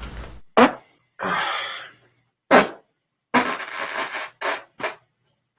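About half a dozen farts in quick succession, each cut off abruptly, the longest lasting about a second.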